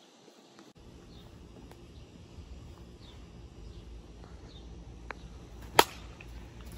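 A yellow plastic wiffle ball bat hits a wiffle ball once, a single sharp crack near the end, over quiet outdoor background with faint bird chirps.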